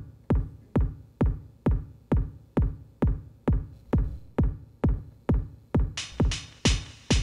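Live electronic music: a steady electronic kick drum beating about twice a second. About six seconds in, a bright hissing percussion layer joins on each beat.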